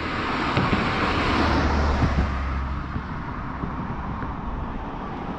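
A car driving past on the bridge roadway: tyre and engine noise swells over the first couple of seconds, then fades as it goes by.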